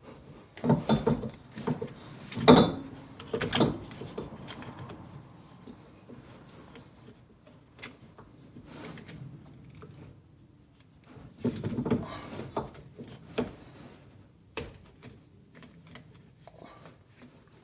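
Hand tools clicking and clinking against metal parts while a part is squeezed into place. There is a cluster of knocks in the first few seconds, a quieter stretch, more clicks about twelve seconds in, and a single sharp click near the end.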